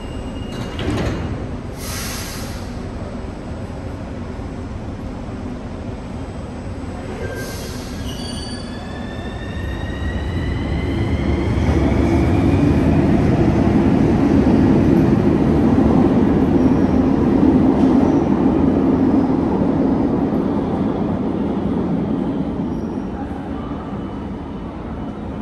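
CAF metro train shutting its doors with a knock and a short hiss, then pulling out of the station. A rising electric whine from the traction motors climbs as it accelerates. A loud rumble of wheels on rails builds, holds for several seconds as the cars pass, and fades near the end.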